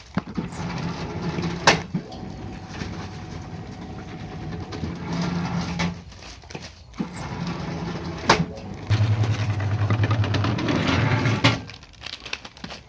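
Mushroom baglog press machine running, its motor hum coming and going and dropping lower for a couple of seconds near the end, as it packs substrate into plastic bags. There are two sharp knocks, one early and one about two-thirds through.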